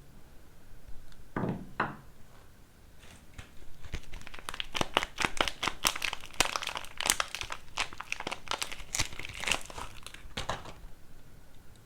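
Soap wrapper being crinkled and torn open by hand. Two brief rustles come about a second and a half in, then a dense run of sharp crackles starts about four seconds in and stops shortly before the end.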